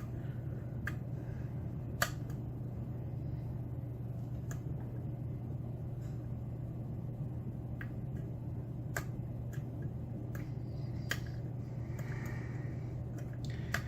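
Scattered faint, sharp clicks of a pick working the pin stacks of a Mauer SKG dimple lock under tension, a few clicks spread over the time, over a steady low hum.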